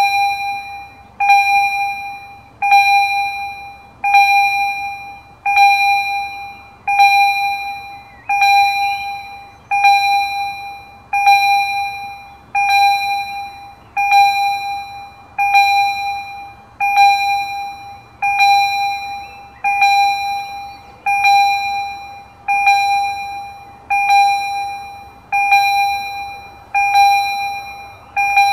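Railway level-crossing warning bell ringing with the barriers down: a single bell strike about every second and a half, each one dying away before the next. It warns that a train is approaching.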